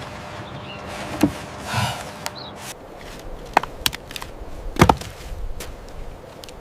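A few scattered, irregular knocks and thuds with soft rustling between them, the loudest nearly five seconds in.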